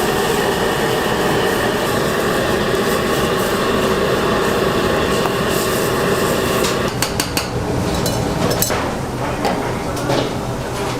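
Commercial kitchen noise: a loud, steady roar for about seven seconds, then it drops and gives way to scattered clanks and knocks of metal cookware and utensils.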